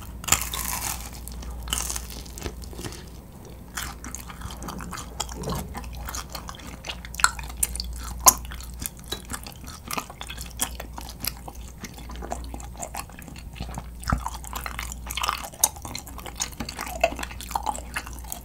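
Close-miked chewing of a grilled kirimochi (Japanese rice cake): wet, sticky mouth sounds with many sharp smacks and clicks.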